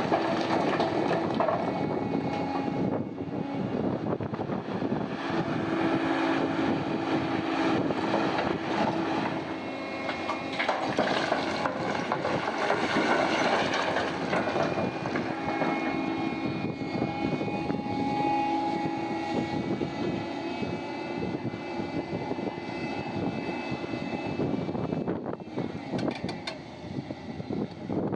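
Heavy diesel machinery at a mine crusher running steadily: a continuous engine drone with several held tones that shift slightly in pitch as the machines work.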